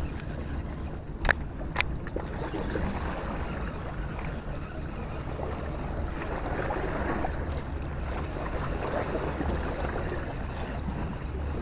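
Wind buffeting the microphone with a steady low rumble, two sharp clicks close together about a second in, then a continuous rough whirr as a spinning reel is wound in on a bent rod.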